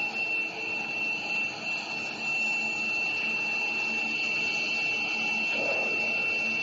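Metal being machined, steady rasping cutting noise with a constant high-pitched whine, getting slightly louder a couple of seconds in.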